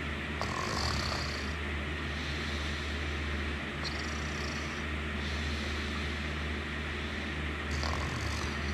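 A sleeping person snoring in a slow, regular rhythm, with a hissing breath about every three and a half seconds over a steady low rumble.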